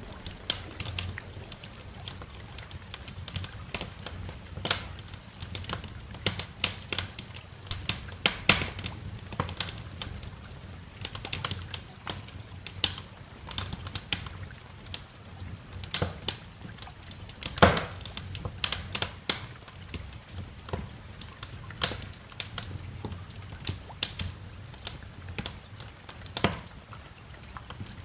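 Wood fire crackling in a fireplace: irregular sharp pops and snaps, several a second and some much louder than others, over a low steady rumble.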